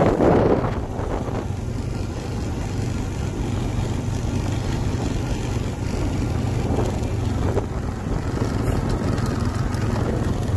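ATV engine running steadily at an even, low speed, with wind gusting on the microphone for about the first second.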